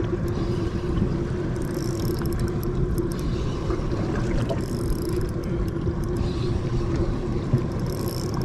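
Fishing boat's engine running steadily with a constant low hum, and a brief hiss returning about every three seconds.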